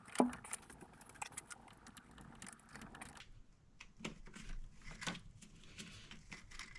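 Faint, scattered clicks and small taps of hands working on plastic vacuum-hose fittings, with a slightly louder tap just after the start and a few more about four and five seconds in.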